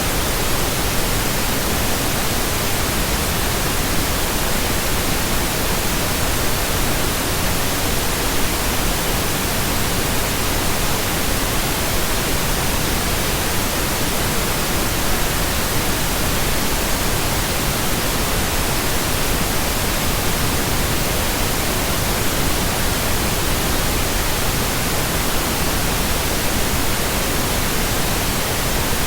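Steady pink noise: an even, unchanging hiss spread across all pitches, with no breaks or events.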